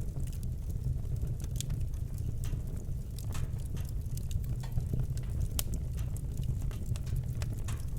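Wood fire burning in a fireplace: a steady low rumble of flames with irregular sharp crackles and pops of burning logs.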